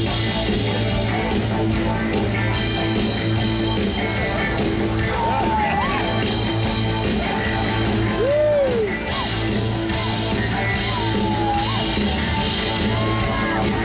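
Live rock band playing a steady groove with bass and drums, hand-struck cymbals sounding above it, and sliding notes that rise and fall every few seconds.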